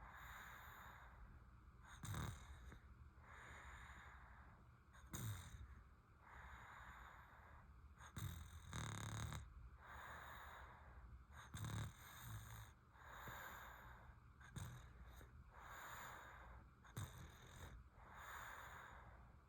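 A sleeping baby snoring faintly, with a short low snore about every three seconds and soft breathing between.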